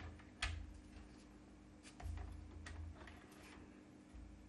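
Faint clicks and taps of cardstock being set against a paper trimmer and its clear plastic cutting rail being lowered into place: one sharper click about half a second in, lighter ticks and a dull knock a little past the middle. A steady low hum sits underneath.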